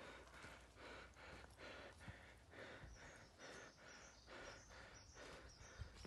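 Faint footsteps of someone walking on a wet, leaf-covered dirt track, about two to three steps a second.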